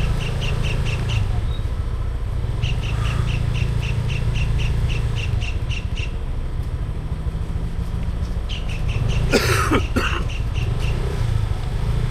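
Steady low hum of a car's engine, heard inside the car, with several runs of rapid, evenly spaced high-pitched pips, about six a second. About nine and a half seconds in there is a brief, louder noisy burst, like a cough.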